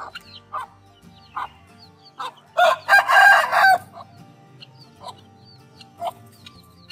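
Rooster crowing once, about a second long, a little before the middle, the loudest sound by far. Around it come short, evenly spaced hen clucks and the high peeping of chicks.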